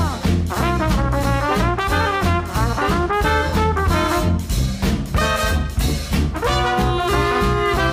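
Upbeat brass-led jazzy background music with a steady beat.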